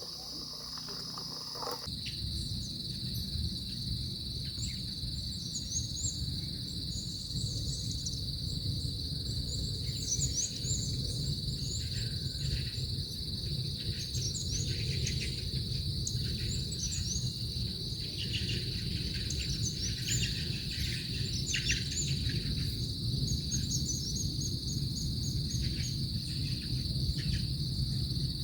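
Steady high-pitched chorus of insects trilling without a break, with short bird chirps scattered over it and a low steady rumble beneath. The trill shifts slightly in pitch about two seconds in.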